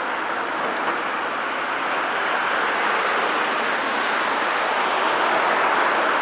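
Caterpillar 323 E excavator with its Cat C7.1 diesel engine running under load, a steady noisy drone that swells slightly toward the end.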